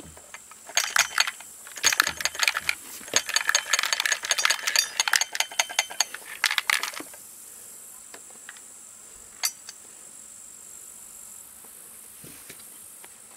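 A disassembled chainsaw's plastic body is turned over and shaken, clattering and clicking in quick irregular runs for about six seconds as a small dropped part rattles loose inside the housing. It then stops, with one more click a little later.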